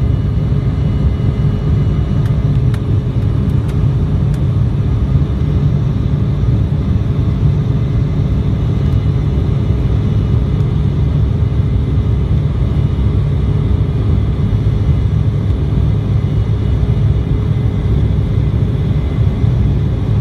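Jet airliner engines and airflow during takeoff: a steady, loud low rumble with faint engine tones above it.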